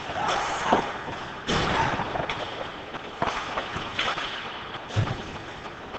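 Ice hockey play in a rink: skates scraping the ice, with a series of sharp clacks and thuds, the loudest about three-quarters of a second in and again near five seconds.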